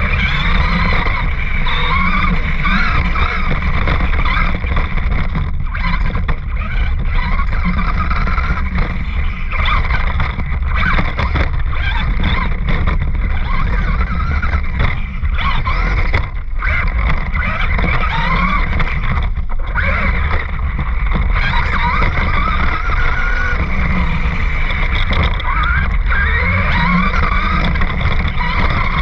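Radio-controlled car's motor whining, its pitch repeatedly rising and falling as it speeds up and slows down, over a steady low rumble of wind on the microphone.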